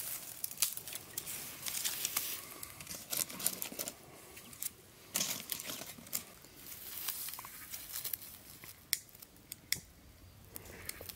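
Dry grass and twigs rustling, tearing and crackling as they are handled for kindling, with a few sharp snaps.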